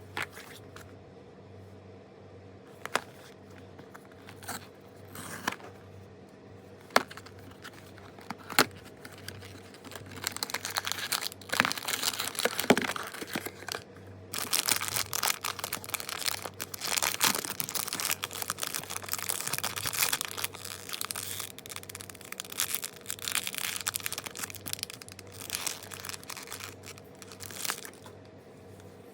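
Blind-box packaging being opened by hand. First come a few separate sharp clicks, then from about ten seconds in plastic wrapping crinkles and tears steadily.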